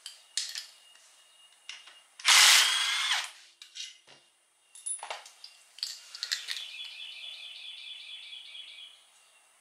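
Power tool running out the case bolts of a Honda Civic Hybrid CVT: a short loud burst with a rising whine about two seconds in, then a longer, quieter run with an even pulsing of about six beats a second from around six to nine seconds. A few sharp clicks come before and between the runs.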